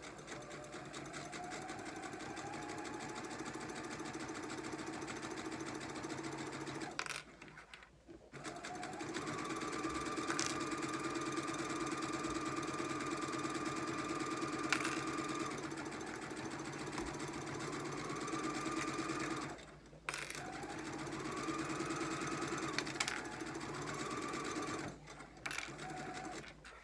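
Brother CS6000i computerized sewing machine stitching a fabric hem, running in stretches with three short pauses. Its motor whine rises as it gets up to speed after each restart, then holds steady.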